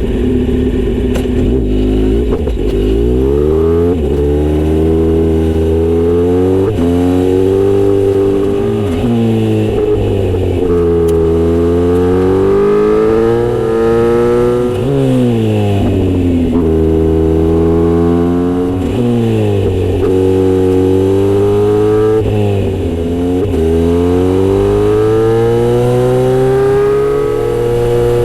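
Kawasaki Z900RS inline-four engine through a Misty Kintaro short-pipe aftermarket muffler with a 70 mm silencer, revving up and dropping back again and again. Near the end it settles to a steady note.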